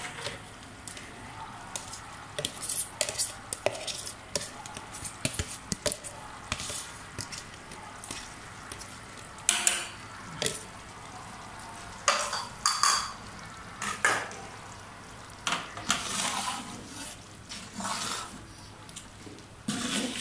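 A steel cup and ladle scrape and clink against a large aluminium pot as rice is tipped into boiling water for biryani. The knocks and scrapes come at irregular intervals.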